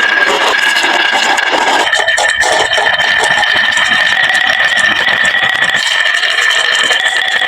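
Marbles rolling along a wooden marble run track with a steady whirring tone, and a cluster of clicks and clacks about two seconds in as marbles knock together and against the track.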